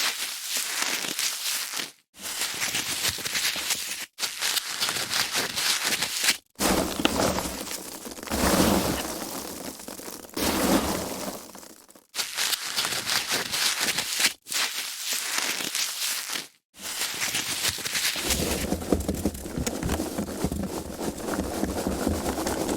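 Foam packaging being handled, rubbed and squeezed, a dense crackling with no pitch, in a run of short takes each broken off by a brief silence, about six times.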